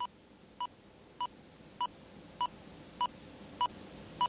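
Hospital heart monitor beeping steadily, one short electronic beep a little under twice a second.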